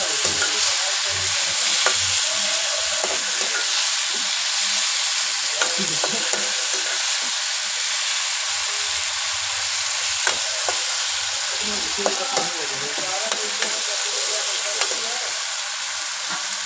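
Tomatoes, green chillies and onion sizzling steadily in hot oil in a kadai, stirred with a metal spatula that scrapes and clicks against the pan now and then.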